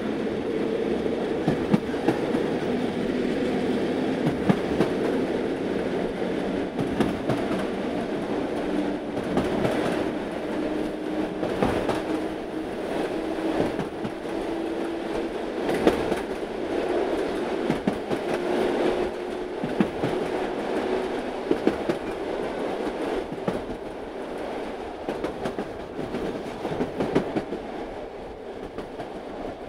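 Talgo sleeper train running on the rails, heard from inside the carriage. It makes a steady rolling noise with scattered wheel clicks, and a low whine rises slowly in pitch over the first twenty seconds as the train gathers speed.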